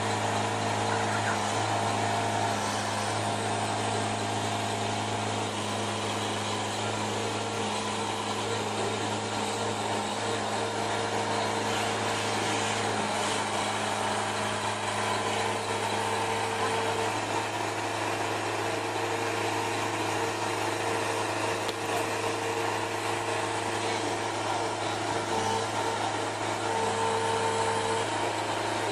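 Engine running steadily to power a side-lifter trailer's hydraulic lifting arms as a landing craft is lowered off the trailer. It is a constant hum, and its tones change slightly about halfway through.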